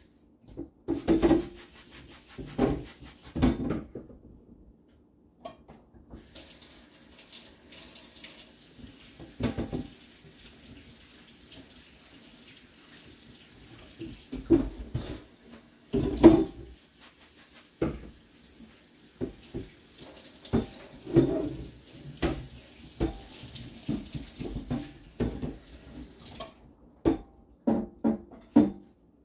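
Kitchen tap running into a sink while a cutting board is washed up, with repeated knocks and clunks as it is handled. The tap comes on about six seconds in and is shut off a few seconds before the end.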